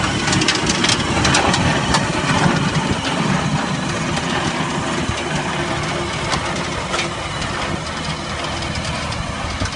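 Tractor-driven stone picker at work: a steady engine drone, with the machine's steel rake-grate conveyor rattling and stones and clods clattering through it into the hopper.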